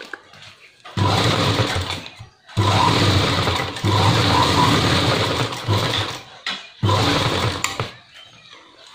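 Sewing machine stitching through cloth in several runs of one to a few seconds, with short stops between, and coming to a stop near the end.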